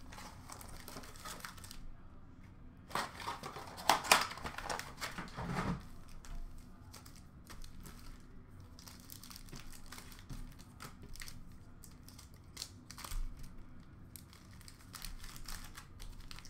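Plastic wrapping and card-pack wrappers crinkling and tearing as a box of trading cards is unwrapped and its packs are handled. The sound comes in scattered bursts, loudest about three to five seconds in.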